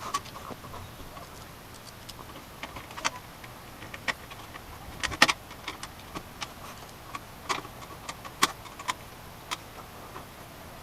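Scattered sharp clicks and light knocks of hard plastic parts and packaging being handled, about a dozen irregular taps with the loudest about halfway through.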